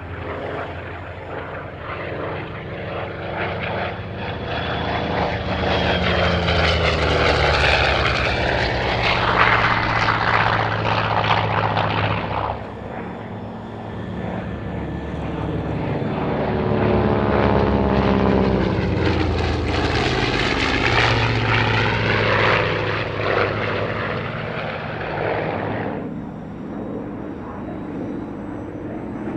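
Piston-engined warbirds making fly-bys, each engine drone swelling loud and then dropping in pitch as the plane passes. First a single-engine warbird passes, and the sound cuts off abruptly about twelve seconds in. Then a Grumman F7F-3P Tigercat passes on its twin Pratt & Whitney R-2800 radial engines, cut off abruptly near the end, where a fainter fighter engine is heard.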